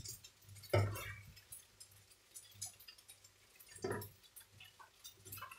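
A black ladle scooping thick curry from a frying pan into a bowl: two short knocks of the ladle against the dishes, about a second in and near four seconds, with faint clicks and wet scraping between.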